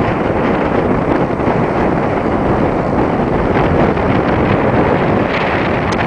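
Loud, steady wind buffeting the microphone, over the wash of sea waves against the shore rocks.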